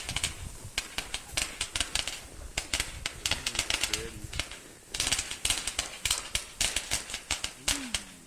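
Consumer fireworks crackling: rapid, irregular pops and snaps in dense clusters with short pauses between them.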